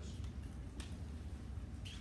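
Room tone: a steady low hum with a few faint clicks.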